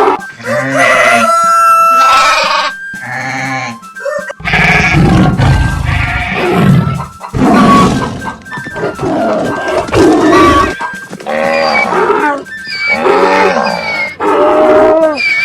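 A string of cartoon animal calls over background music, one after another with short gaps, with a deeper, heavier call from about four and a half to seven seconds in.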